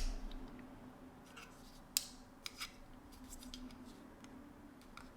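Small plastic items and packaging being handled: a sharp click at the start, another about two seconds in, and light scattered ticks between, over a faint steady hum.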